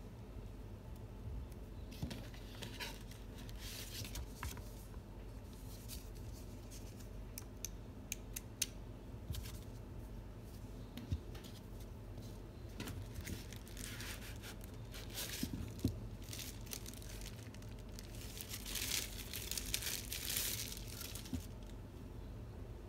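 Cardboard box and paper packaging being handled: rustling and crinkling with light taps and clicks, louder in two stretches in the second half.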